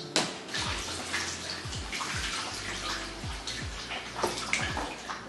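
Kitchen tap running into the sink, a steady splash of water as broccoli is rinsed under it.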